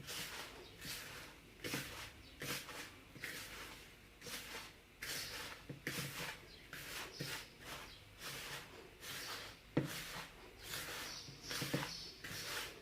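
Bare hands mixing ground biscuit crumbs with sugar and melted butter in a bowl: soft, irregular crumbly rustles and squishes, one or two a second.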